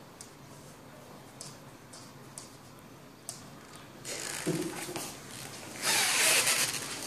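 A few light clicks and taps as a kitten bats a small plastic toy ball across a hard floor. From about four seconds in, louder scuffling and rustling that grows loudest near the end.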